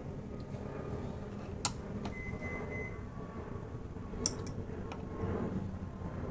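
A few sharp clicks and light knocks from parts of a range hood being handled and fitted, with a short high squeak about two seconds in, over a steady low hum.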